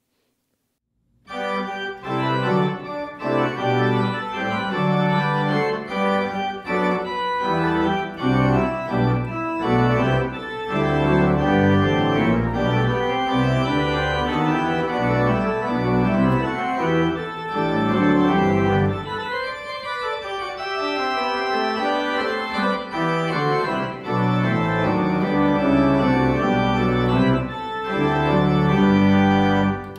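Church organ playing full, sustained chords. It comes in about a second in, after a moment of silence.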